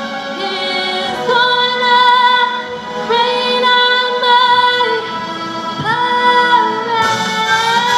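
A young woman's solo voice singing a show tune into a microphone over accompaniment, in a string of long held notes with vibrato that step from pitch to pitch, the last one held longer and swelling upward near the end.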